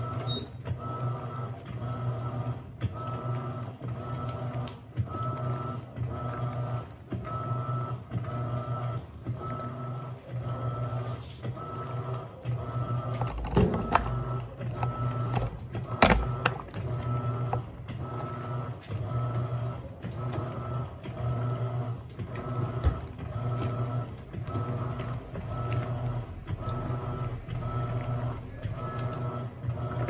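Electrolux LAC17 top-load washer agitating a load of jeans in soapy water with its impeller: the motor hums and the water sloshes in an even, quick pulsing rhythm. There are a couple of louder knocks about halfway through.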